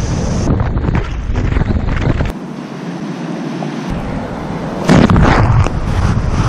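Wind rumbling and buffeting on the camera microphone as outdoor clips follow one another, changing abruptly several times and loudest from about five seconds in.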